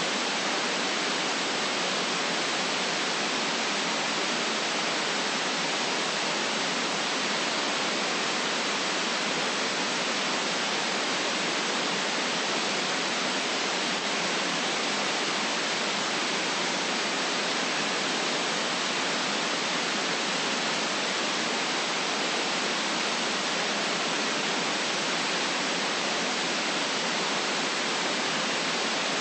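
Steady electronic white noise for sleep: an even, unchanging hiss with little deep rumble, cut off in the highs.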